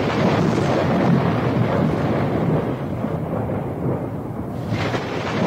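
A thunderstorm sound track: steady rain with a deep rolling rumble of thunder. The hiss thins for about a second and a half, three seconds in, then swells back.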